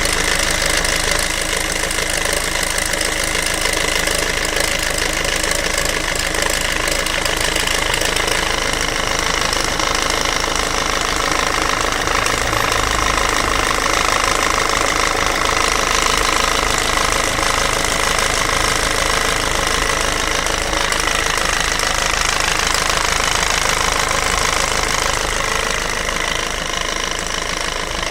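PSA 1.6 HDi FAP four-cylinder common-rail turbodiesel running steadily with a fast, even diesel clatter and a steady high whine over it. The owner finds the sound strange and is unsure whether it is normal.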